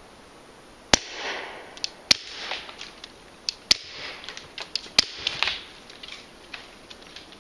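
Four shots from a suppressed Glock 17 9mm pistol, irregularly spaced and each trailed by an echo, with fainter sharp clicks between them.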